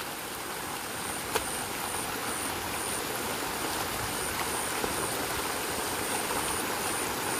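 Water running steadily through a small rice-paddy irrigation ditch and the outflow at the field's edge, with one short click about a second and a half in.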